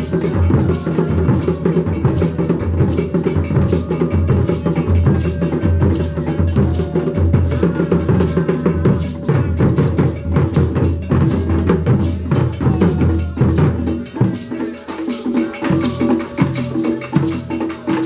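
Traditional Ghanaian drum ensemble playing a dense, steady rhythm on large carved wooden drums. The deep drum tones thin out about fourteen seconds in, leaving lighter, higher strokes.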